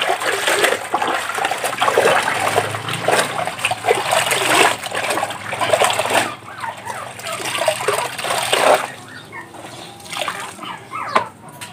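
Water splashing and dripping as dark clothes are hand-washed in a plastic basin of soapy water: dunked, lifted and squeezed, with water running off the cloth and hands. It quietens to scattered drips and trickles for the last few seconds.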